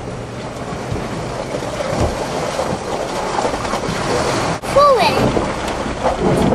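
Cab noise of a Land Rover Discovery 3 crawling over a rough rocky off-road track: a steady rumble of engine and tyres, with wind on the microphone. About five seconds in, a short rising-and-falling voice cuts across it.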